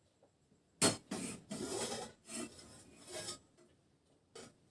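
Handling noises: a sharp knock about a second in, then a series of short scraping, rubbing sounds.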